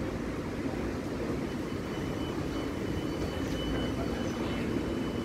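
A vehicle running steadily: a continuous low rumble with a hum, and a faint thin high whine through the middle.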